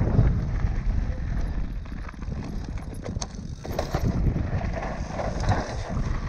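Commencal mountain bike riding downhill over loose shale and dirt: tyres crunching on gravel with chain and parts rattling, under a low rumble of wind on the microphone.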